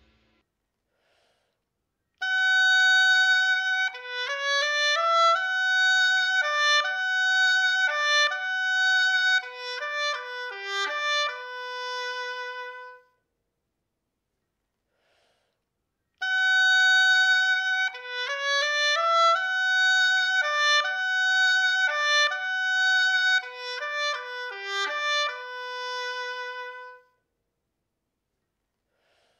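Oboe playing a short legato melody at a loud (forte) dynamic, twice over, with a pause of about three seconds between the two playings.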